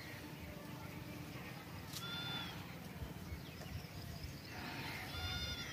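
Two short animal calls, about three seconds apart, heard faintly over a low outdoor rumble.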